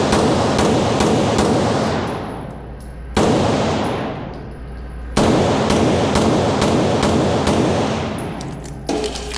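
Rapid strings of pistol shots from a Taran Tactical JW4 Pit Viper 2011 competition pistol, each shot ringing with a long echo. The strings come at the start, a little after three seconds, a little after five seconds and briefly near the end, with lulls of about a second or two between them.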